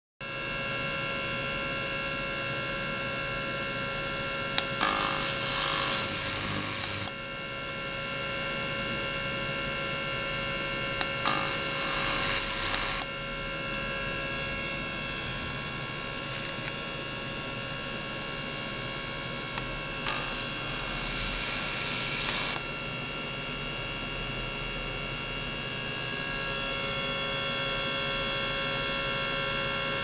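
Ultrasonic probe immersed in a jug of water and driven by an oscillator, giving a steady electric whine of several tones at once. Bursts of hissing noise, each two to three seconds long, come in about five, eleven and twenty seconds in.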